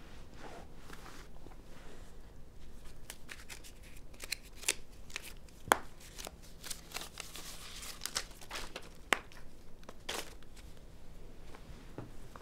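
Close rustling and crinkling with many small clicks and taps as something is handled by hand, like paper or banknotes being sorted; one sharper click a little before six seconds in.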